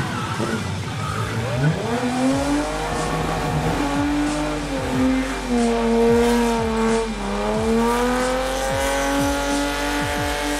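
BMW E30 drift car sliding under power: the engine revs high, its pitch swooping down and back up in the first couple of seconds, then held high with slow small dips, while the tyres squeal.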